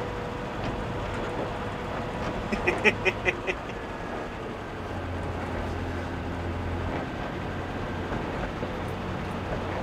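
A 1966 Morris Minor's 1098 cc A-series four-cylinder engine running steadily while the car is driven, heard from inside the car. A quick run of short, sharp high sounds comes about three seconds in.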